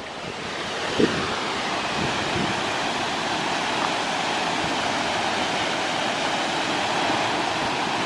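Rainbow Falls waterfall pouring into its pool: a steady rush of falling water that swells over the first second or two and then holds even. A soft knock about a second in.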